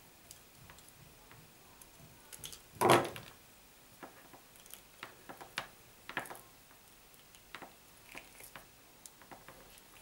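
A cable being stripped by hand, with small clicks and rustles as the outer sheath of a shielded ADSL cable is scored and pulled off. There is one louder noise about three seconds in.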